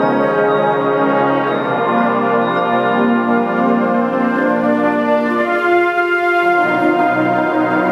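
Concert band of woodwinds, brass and percussion playing sustained chords, the harmony shifting about a second and a half in.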